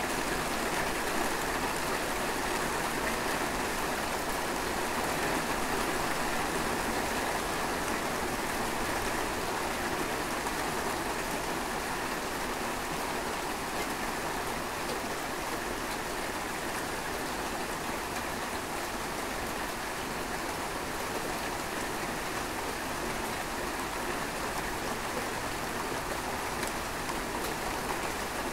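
Rain falling steadily, an even, dense hiss with no thunderclaps.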